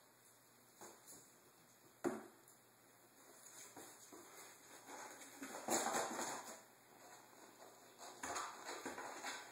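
Kittens moving about on a tile floor among food bowls and towels: a sharp knock about two seconds in, a stretch of rustling around the middle, and light scattered taps near the end.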